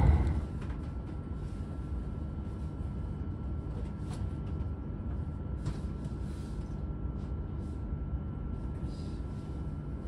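Steady low rumble and hum inside a Shinkansen GranClass passenger cabin, with a faint steady high tone over it.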